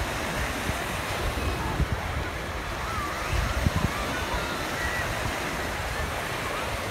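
Busy beach ambience: small waves washing onto the sand under the chatter of many distant voices and children, with wind buffeting the microphone.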